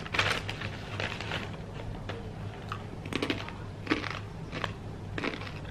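Crinkling of a foil-lined snack bag being handled and crunchy bites of cassava chips, heard as irregular crackly snaps.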